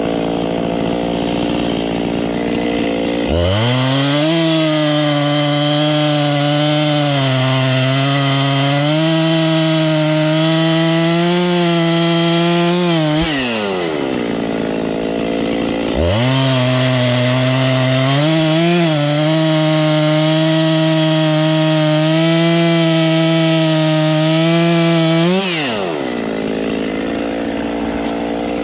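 Gas chainsaw idling, then revving to full throttle and cutting through wood twice, each cut about ten seconds long with the pitch sagging slightly under load, and dropping back to idle after each cut.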